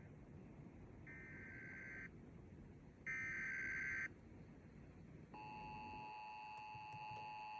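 Emergency Alert System SAME header: two one-second bursts of screechy digital data tones, the second louder. At about five seconds the steady two-tone EAS attention signal begins.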